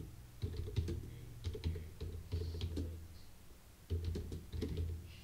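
Typing on a computer keyboard: irregular keystrokes entering a line of text, with a brief pause a little after three seconds in.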